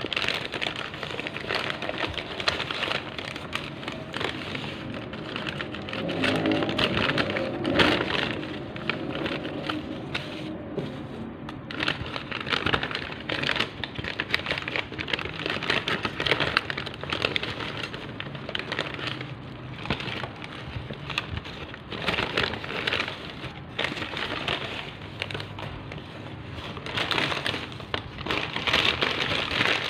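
Brown paper takeout bag and plastic food bags rustling and crinkling as hands open them and lift out the food, in irregular crackles with louder bursts now and then.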